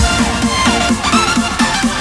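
Background electronic dance music: a rhythmic line of short, falling synth notes, with a deep bass coming in at the start.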